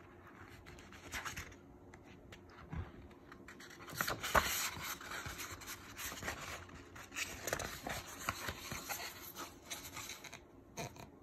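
Pages of a hardcover graphic novel being turned and handled: the paper rustles and slides under the fingers, with one sharp tap about four seconds in.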